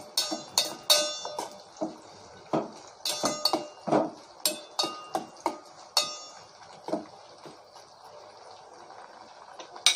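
Metal spoon clinking and scraping against a steel pan, stirring a tempering of dals, curry leaves and dried red chillies frying in oil, over a faint steady hiss of frying. The clinks come in quick irregular runs and stop about seven seconds in, with a couple more near the end.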